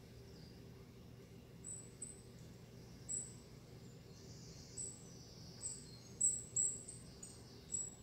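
Short, high-pitched bird chirps played through a television's speakers, about ten of them scattered irregularly, the loudest pair a little after six seconds in, over a low steady hum.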